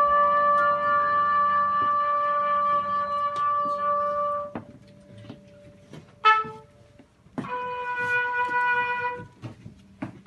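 Unaccompanied trumpet playing slow, long held notes: one long note, then a pause of about three seconds broken by a short note, then another held note of about two seconds.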